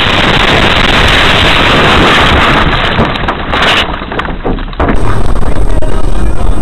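Loud rushing noise of wind and a moving vehicle. About five seconds in it gives way abruptly to a steadier low rumble.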